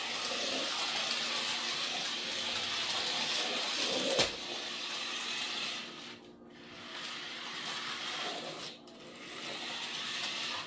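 Adventure Force mini RC truck's small battery-powered electric motor and plastic gears whirring as it drives, in runs of a few seconds with brief pauses about six and nine seconds in. A sharp knock about four seconds in.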